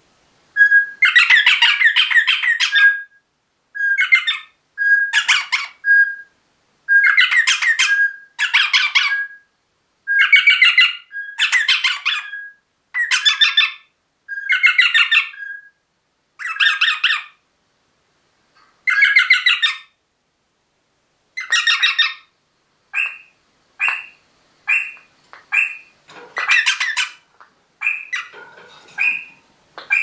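Eastern rosella squawking in a long series of harsh, chattering calls, each a second or two long with short pauses between. In the last third they turn into short, sharp notes about one a second.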